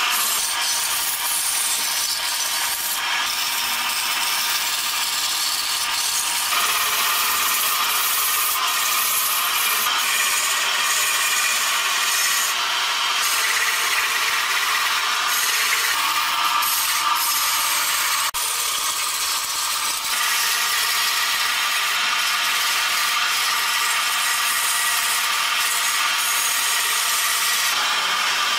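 A large wooden workpiece spinning on a wood lathe, with a turning tool or abrasive scraping along it: a steady, loud hissing rasp that shifts abruptly a few times.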